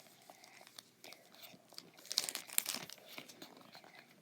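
Foil booster-pack wrapper being torn open and crinkled by hand, an irregular crackling that is loudest about two seconds in.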